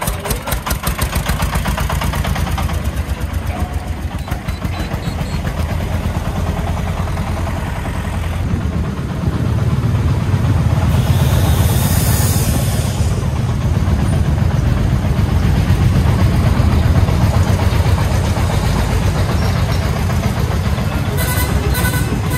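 Diesel engine of a homemade three-wheeled công nông truck, fitted with a 40 hp engine, running with a rapid steady chugging as it drives off; louder from about nine seconds in, with a short hiss around eleven seconds in.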